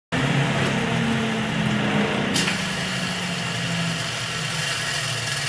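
Wood lathe running with a steady motor hum and hiss, cutting in suddenly. There is a brief change in the hiss about two and a half seconds in.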